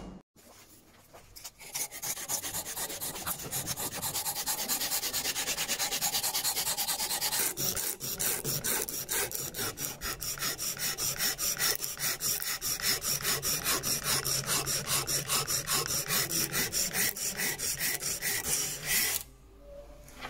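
Sanding strip pulled back and forth around a wooden screwdriver handle clamped in a vise, shoeshine fashion, making a rhythmic rasping rub in quick, even strokes. It starts about a second and a half in, pauses briefly midway, and stops just before the end.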